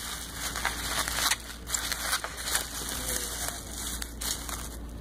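Bubble wrap being pulled off and handled: plastic crinkling and rustling with irregular crackles.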